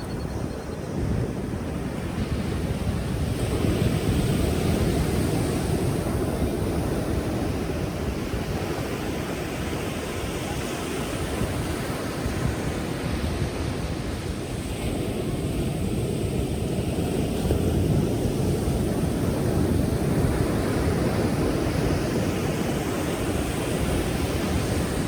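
Pacific Ocean surf: waves breaking and washing in as a continuous rush, swelling louder about four seconds in and again later on.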